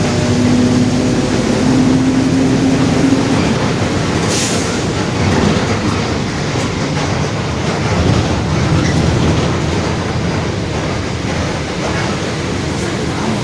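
Mercedes-Benz OF-1721 city bus's rear differential droning very loudly over a heavy rumble of road and body noise. The pitched drone fades out about three and a half seconds in, leaving the rumble, and a brief hiss comes about a second later.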